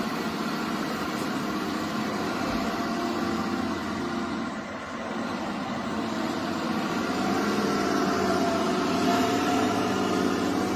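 Radio-controlled scale construction machines running while grading dirt: a steady motor drone with several whining tones that drift slightly up and down, briefly dipping about halfway and growing a little louder near the end.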